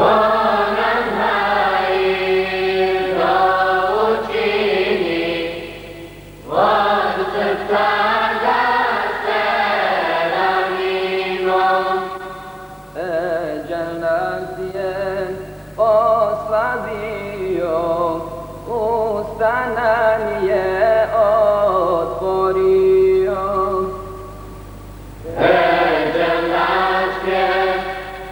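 A madrasa choir singing an ilahija, a Bosnian devotional hymn, in long sung phrases with brief pauses between them. The sound is a dull, narrow-band transfer from old VHS tape.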